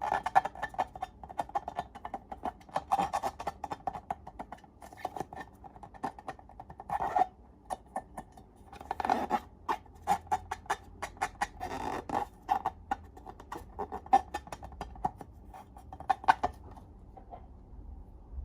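Slime being squished and worked by hand: a dense run of sticky clicks and small squelches, thinning out near the end.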